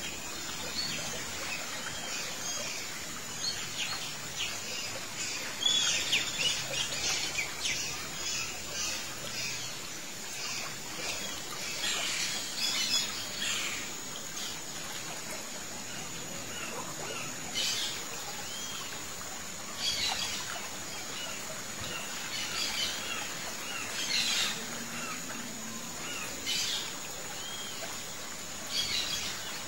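Small songbirds chirping and calling in scattered clusters of quick, high notes and short whistles, over a steady high-pitched hiss.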